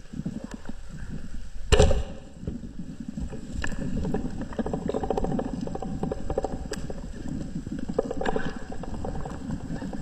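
Speargun fired underwater at a giant trevally: one sharp crack about two seconds in, followed by a steady underwater rush with scattered small clicks.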